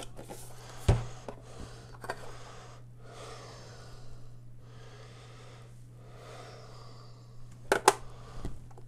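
Handling a small plastic photo printer and its cardboard box: a knock about a second in, then quiet scraping and rustling, and two sharp clicks near the end as the printer's front paper-tray flap is snapped shut.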